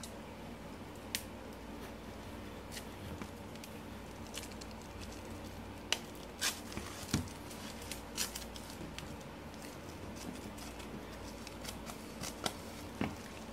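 Clear plastic shrink wrap being peeled and torn off a sealed CD album, giving an irregular scatter of short, faint crinkles and snaps.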